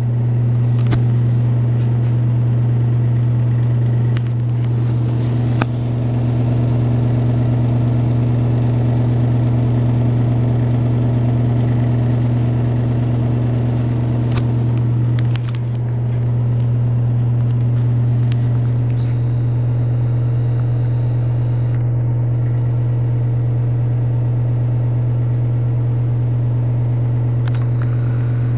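ACME Engineering & Manufacturing Corp. ceiling exhaust fan running with a steady low hum over the rush of air.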